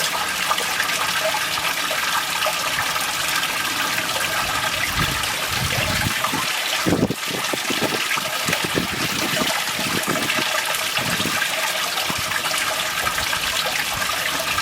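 Steady rush and trickle of running water in a koi pond, with a few soft low thumps around the middle.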